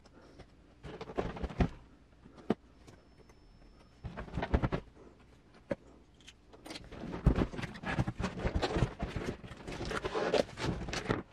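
Cardboard retail box being handled and opened by hand: scraping, sliding and knocks of cardboard, with one sharp click about two and a half seconds in. Longer, denser rustling and scraping comes in the second half as the sleeve and flaps are pulled apart.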